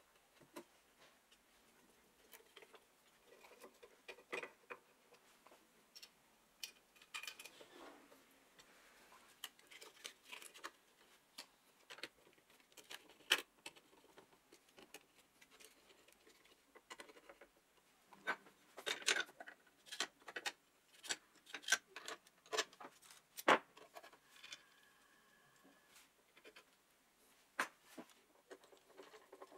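Irregular small clicks, taps and scrapes of a screwdriver, screws and metal parts being handled and tightened in a cut-off saw's metal handle housing while the switch and wiring are fitted. The clicks grow thicker and louder about two-thirds of the way through.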